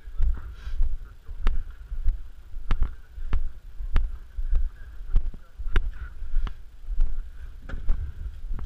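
Footsteps on rough ground, one sharp crunch or knock every half second to a second, over a steady low rumble of wind and handling on the microphone.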